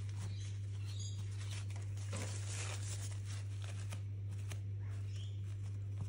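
A steady low hum, with faint taps and rubs of a paint marker and fingertips on a canvas panel.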